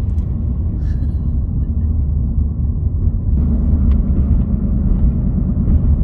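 Steady low rumble of a car driving at road speed.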